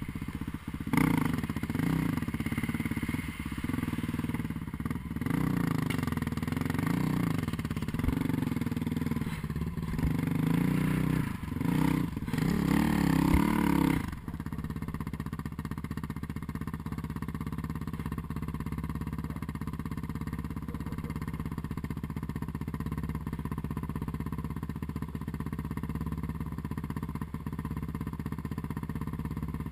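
Snowmobile engine revving up and down under way, then about fourteen seconds in dropping abruptly to a steady idle.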